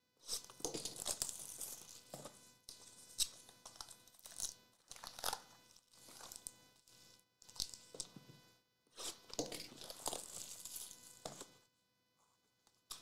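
Foil wrappers of 2021 Panini Chronicles football card packs crinkling and rustling in irregular bursts as the packs are pulled from the box and stacked, dying away near the end.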